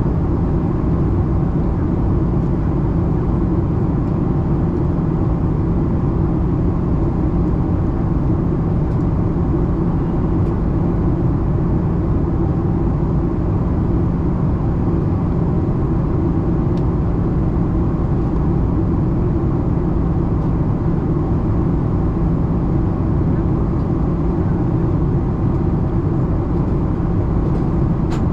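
Steady cabin noise inside a Boeing 737-800 on its approach to landing: the constant drone of the engines and the rush of air over the fuselage, with a low hum beneath.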